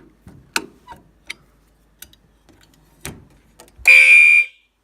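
A few light clicks. Then, about four seconds in, a Gentex SHG fire alarm horn sounds a loud blast of about half a second, and the next blast starts a second later. The horn is sounding because its sync signal has been restored.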